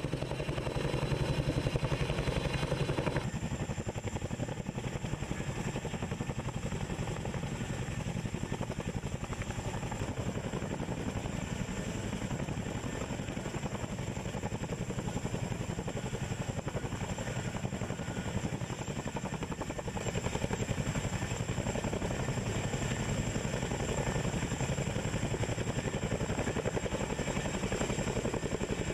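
Boeing CH-47 Chinook tandem-rotor helicopter hovering close by: steady rotor and turboshaft engine noise. A thin, steady high whine comes in about three seconds in.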